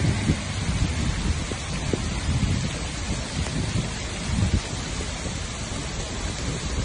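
Steady rushing of a muddy flash-flood torrent pouring down a rock cliff in heavy rain, with a deep rumble and irregular gusts of wind on the microphone.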